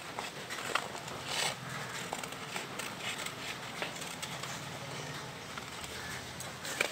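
Scissors snipping through a sheet of coloured paper in short, irregular cuts, with the paper rustling as it is turned.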